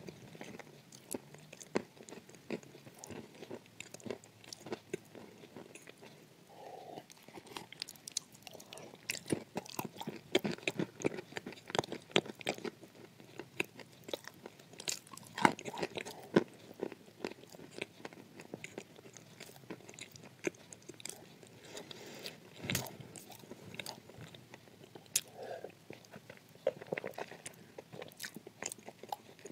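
Edible clay being bitten and chewed with the mouth closed: close, dry crunching made of many small crackles, with a few sharper crunches now and then.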